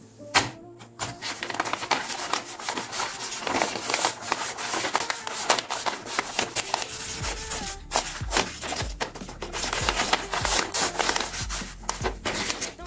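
Paper rustling and rubbing as a handmade paper blind bag is handled and squeezed by gloved hands, with a sharp crinkle near the start. Background music with a steady low beat comes in about halfway.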